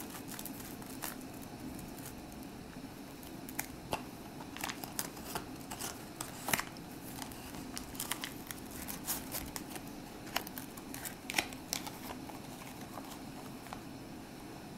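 Crinkled foil wrapper of a chocolate egg and its paper box crackling and rustling in gloved hands: irregular small crackles and clicks over a steady low hum.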